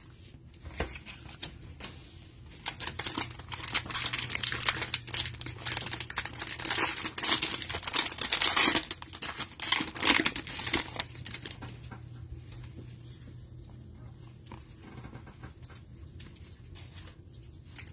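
Plastic wrapper of a trading-card hanger pack being torn open and crinkled in the hands, a dense crackle that is loudest in the middle. It then gives way to a softer rustle of cards being slid and sorted near the end.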